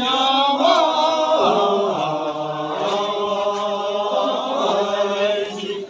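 Buddhist prayer chanted melodically: a voice holds long notes with slowly wavering pitch in one unbroken phrase that ends right at the close.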